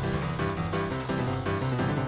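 Background music with a steady beat: an upbeat instrumental track laid over the clips.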